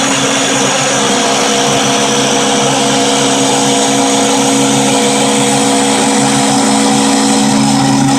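Homemade MDF-framed CNC machine running steadily, with its spindle motor making a loud mechanical noise over several held tones; a higher held tone joins about a second in.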